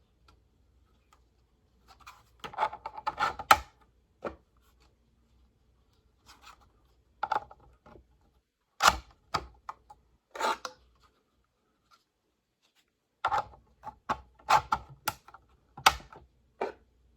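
Small model-siren horn pieces being handled and pushed into their slots: scattered clicks and rattles in several short clusters, with pauses between.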